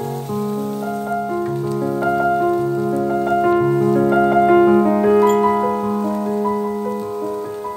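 Background piano music: slow held notes and chords moving step by step.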